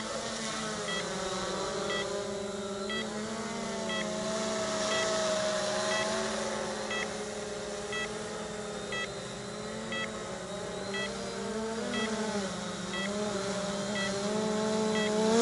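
Cheerson CX-20 quadcopter's brushless motors and propellers humming in flight, the pitch wavering up and down as the throttle changes. Faint short beeps sound about once a second.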